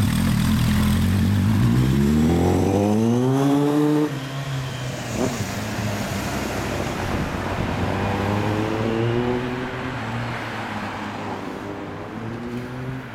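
Suzuki Katana GSX1100S air-cooled inline-four through a hand-bent steel 4-into-1 exhaust with a straight-through silencer, running at low revs and then revving up as the bike pulls away. The revs climb again further off, and the sound fades toward the end.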